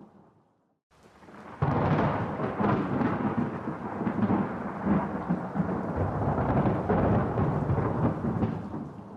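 Thunder. The tail of one rumble dies away, then about a second and a half in a new peal breaks in suddenly. It rolls on as a deep, loud rumble for several seconds before fading near the end.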